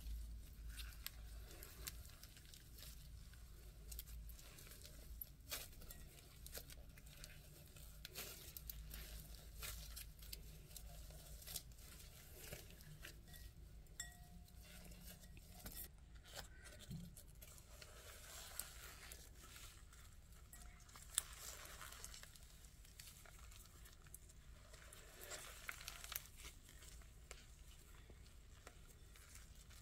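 Blue slime with foam beads being kneaded and stretched by hand: a faint, irregular crackle of small clicks and pops, with one sharper click a little past the middle.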